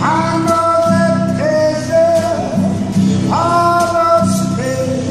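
A man singing long held notes, each scooping up into pitch, while strumming a guitar in an even rhythm. A new sung phrase starts about three seconds in.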